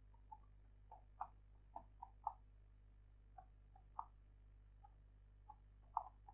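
Computer keyboard keys clicking faintly as someone types: about fifteen irregularly spaced keystrokes.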